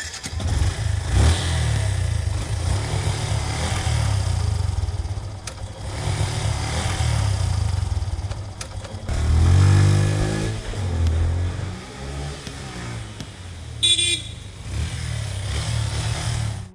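Engine sound effect of a kids' 12V battery-operated ride-on motorcycle, switched on by its key: a steady low motorbike rumble with a rev that swells and falls about nine seconds in, and a short horn beep near the end.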